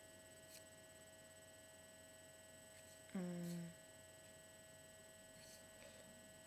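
Near silence with a steady electrical hum of several thin tones. About three seconds in, a brief wordless murmur from a woman's voice, falling slightly in pitch, and a couple of faint ticks.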